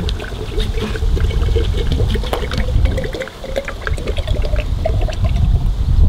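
Water poured in a steady stream from a plastic jug into a glass mason jar, splashing and trickling, with a faint tone that rises slightly as the jar fills.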